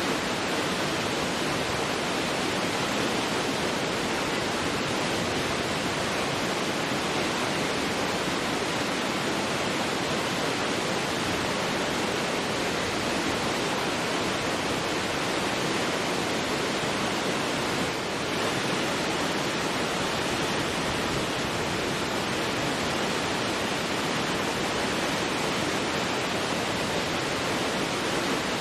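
Large waterfall in heavy flow: a steady, dense rush of falling water with no breaks.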